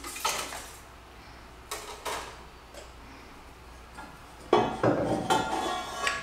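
Metal clanking and scraping from a titanium exhaust manifold being worked loose and pulled out of an engine bay. A few light knocks come first, then a run of louder ringing clanks and rattles in the last two seconds.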